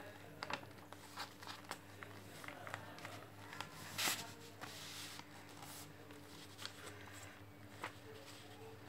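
A sheet of white paper being folded and creased by hand into a paper airplane: faint scattered rustles and crinkles, with a louder brief swish about four seconds in.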